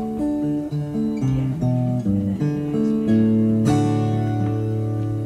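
Amplified acoustic guitar playing a run of single notes that change quickly and ring on, with a low note held steadily from about three seconds in.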